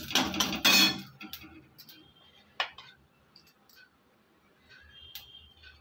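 Metal spatula scraping and clinking in a pan where dried red chilies and whole cumin fry in oil: a noisy scrape in the first second, then a few light clicks and one sharper clink.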